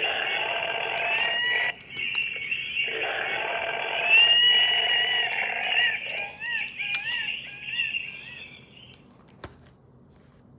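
Recorded night-time animal calls played through a sound book's small speaker: a dense, shrill call with rising cries, broken off briefly near two seconds in, then a run of short chirps that fades out about nine seconds in, followed by a single click.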